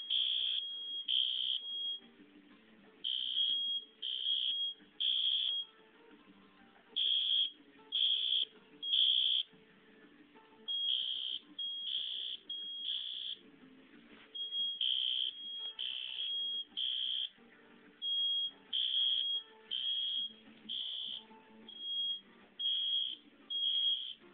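Smoke alarm and System Sensor horn sounding together: high-pitched beeps in groups of three with a pause between groups, the temporal-three fire evacuation pattern. The units are not quite in step, so the beeps partly overlap.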